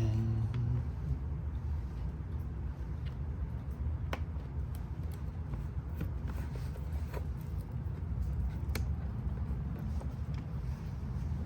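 A few light clicks and ticks from wires and connectors being handled inside a generator's wiring panel, over a steady low rumble.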